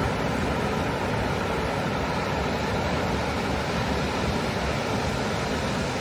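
Ocean surf breaking on a sandy beach: a steady, unbroken rush of waves with no single crash standing out.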